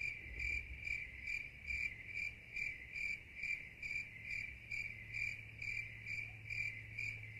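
Crickets chirping, a steady high chirp repeating a little over twice a second over a faint low hum. It is a cricket sound effect cut in after the sanding announcement, the usual awkward-silence gag.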